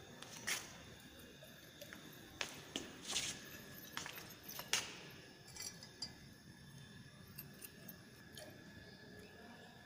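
Laboratory glassware being handled: a few faint, scattered clinks and knocks of glass against glass.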